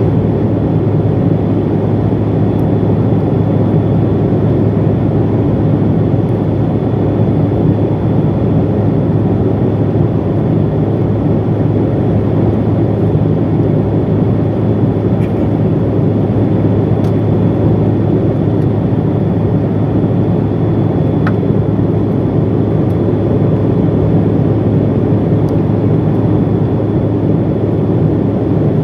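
Steady cabin noise inside a Bombardier CRJ700 regional jet in flight: the deep, even drone of its rear-mounted General Electric CF34 turbofans and the airflow, with a faint steady high whine over it.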